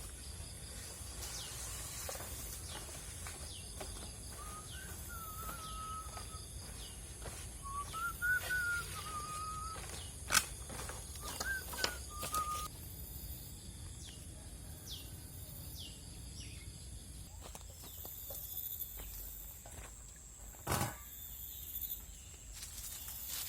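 Forest ambience: a steady high-pitched insect drone under repeated short falling bird chirps, with a warbling whistled bird song in the first half. A few sharp clicks and one louder knock about three-quarters of the way through.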